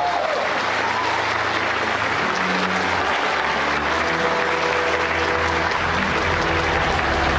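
Audience applauding a Chinese traditional-instrument ensemble, starting as the ensemble's last sliding notes die away. About halfway through, music with steady sustained low notes comes in under the applause.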